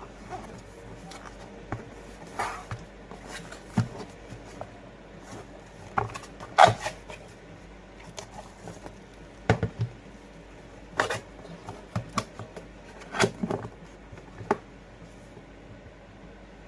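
Scattered clicks and knocks of a Glock 19 replica pistol being handled, irregularly spaced, with the loudest knock about six and a half seconds in.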